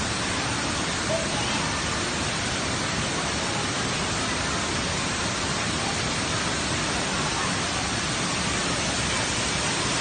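Steady rushing of a large waterfall: an even, unbroken noise of falling water.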